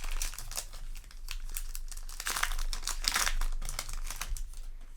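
Foil wrapper of a Yu-Gi-Oh! booster pack crinkling and tearing as it is opened by hand, in irregular rustles that are loudest a little past halfway through.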